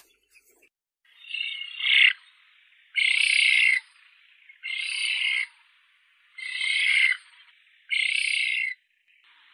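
Eurasian spoonbill giving five harsh, rasping calls, each about a second long, with short pauses between them.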